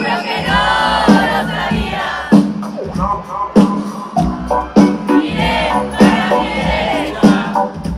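Live rock band playing a song's instrumental intro over a steady, heavy drum beat, recorded loud from within the audience, with crowd voices mixed in.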